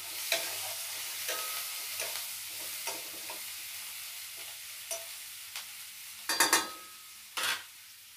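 Chopped onion sizzling in hot oil in a stainless steel kadai, frying until lightly browned, while a metal spatula scrapes and taps the pan about once a second. Two louder scrapes come near the end as the sizzle fades.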